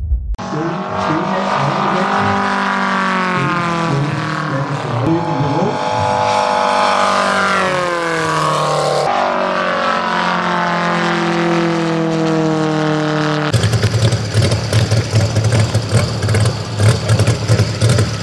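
Gasoline radial engine of a large RC model of the Gilmore Red Lion racer in flight, its pitch sweeping down and up as the plane passes and turns. About 13 seconds in, this gives way to the same radial engine running close by on the ground with a low, uneven throb.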